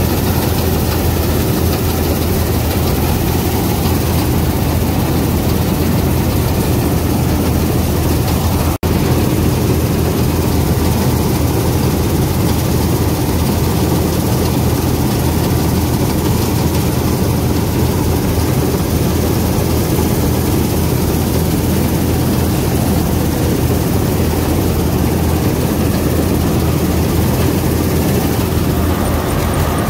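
International Harvester 321 combine harvester running steadily while cutting wheat, its engine and machinery heard from the open operator's platform as a loud, even drone. The sound drops out for an instant about nine seconds in.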